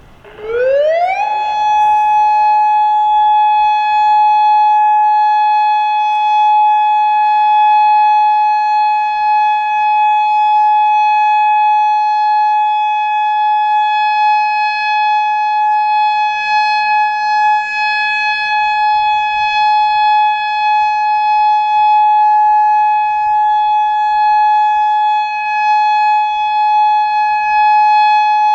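Federal Signal Modulator 3012 electronic warning siren sounding its test: the tone sweeps up in pitch over about a second, then holds one steady, loud pitch with strong overtones.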